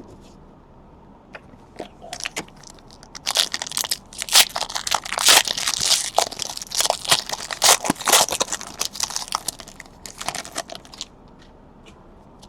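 A trading-card pack wrapper being torn open and crinkled by hand: dense crackling and crunching that starts about two seconds in, is loudest through the middle and dies away about a second before the end.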